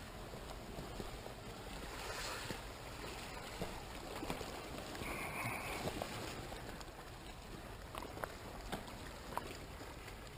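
Sea water lapping and washing among rocks in a shallow gully, a steady wash with a few faint clicks and a short high tone about five seconds in.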